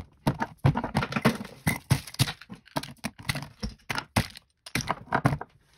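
Small objects such as rolls of tape, a marker and packets being dropped one after another onto a tabletop: a quick, irregular run of knocks and clacks that stops shortly before the end.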